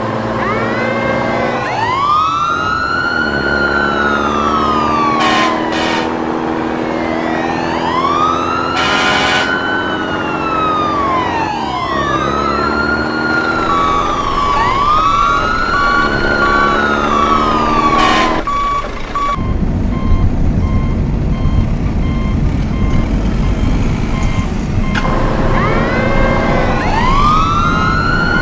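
Emergency vehicle siren wailing, rising and falling in long sweeps about every four seconds. A steady two-tone pattern joins it for a stretch, and a low engine rumble comes in about two-thirds of the way through.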